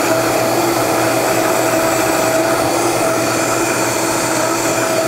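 High-powered countertop blender running steadily with a constant whine, churning a milkshake while liquid nitrogen is dribbled in to chill it.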